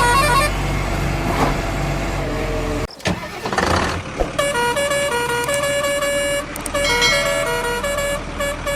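Electronic toy-truck horn tune: two notes alternating in a repeating pattern, starting about four seconds in. Before it there is a steady hum, broken by a sudden cut and a short whoosh about three seconds in.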